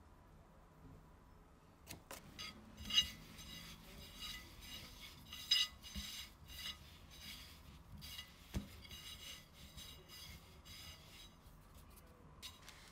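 A metal spoon scraping and clinking on a ceramic plate, then hands rolling floured sausage pieces around the plate with light rubbing and small clicks. It starts about two seconds in, and the loudest clinks come near three and five and a half seconds.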